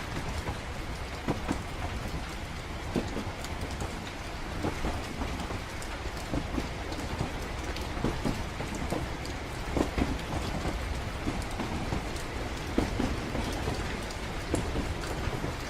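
Train-ride ambience: a steady low rumble of a moving train carriage with rain on the windows, and irregular sharp taps and knocks scattered throughout.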